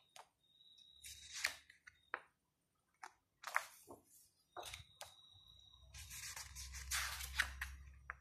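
Pages of a large photo book being turned by hand: a series of short paper swishes and rustles, with a longer rustle near the end.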